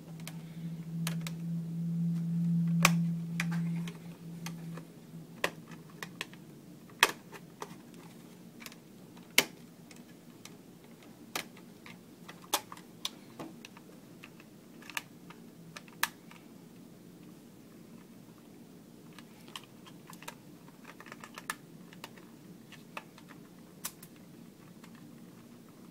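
A flat screwdriver prying at the plastic back cover of an Allen-Bradley PanelView 600 Plus operator panel: scattered sharp plastic clicks and snaps, about one every second or two, as the cover's clips are worked loose. A steady low hum runs through the first four or five seconds.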